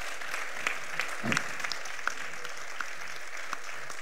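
Audience applauding steadily, with a few sharper single claps standing out.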